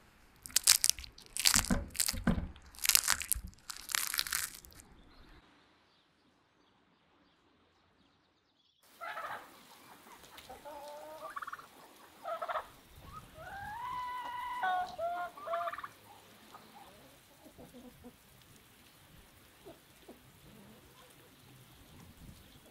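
Crispy roast chicken skin crackling in about five loud crunches as it is pressed and broken by hand. After a few seconds of near silence, poultry calling: a run of pitched calls and clucks from turkeys, geese and chickens, fading to fainter calls.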